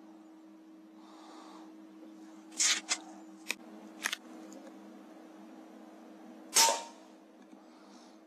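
AGT Uragan 2 FAC PCP air rifle: a few sharp clicks and knocks from about two and a half to four seconds in, then its shot near the end, a single short crack that is the loudest sound. A steady faint hum runs underneath.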